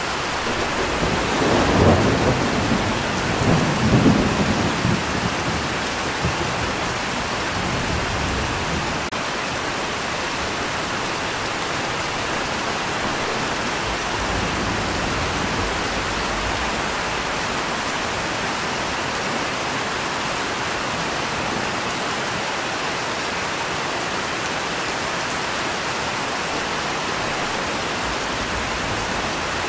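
Steady rain with a low rumble of thunder in the first few seconds that swells twice and fades out by about six seconds in.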